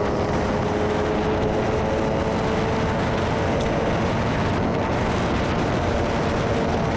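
Steady wind rush on a helmet-mounted camera's microphone while riding a motor scooter at cruising speed, over the even drone of its engine.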